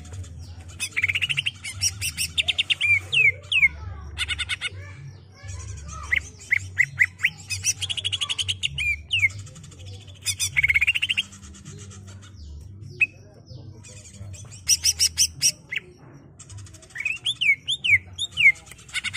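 Male greater green leafbird (cucak ijo) singing a long, varied rolling song: runs of quick up-and-down whistled notes, fast high trills and buzzy rattles, broken by short pauses.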